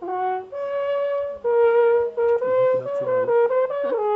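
Alphorn playing a melody: a short low note, then a long held higher note and another sustained note, moving into a quicker run of shorter notes that step and waver in pitch near the end.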